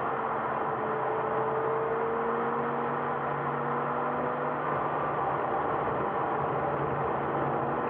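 Steady in-car road and engine noise from a car driving along, with a few constant hum tones and one that rises slowly over the first few seconds.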